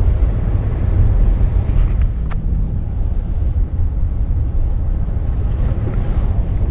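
Steady low rumble of a car driving on a road.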